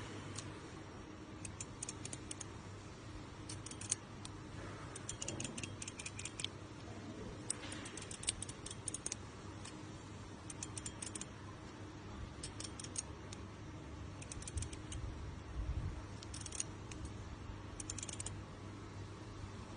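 Mechanical keycap slider fidget toy being worked by hand: short runs of quick plastic clicks, like keyboard switches, come in clusters every second or two.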